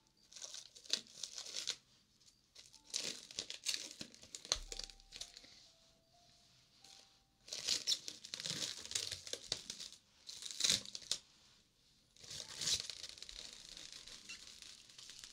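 Cling film being pulled, torn and crinkled, in about five crackling bursts with short pauses between them.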